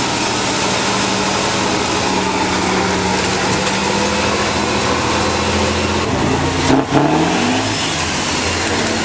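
Six-wheeled trial truck's diesel engine running hard under load as it crawls over rough ground. About seven seconds in there is a short knock, and then the engine revs up, its pitch rising over about a second.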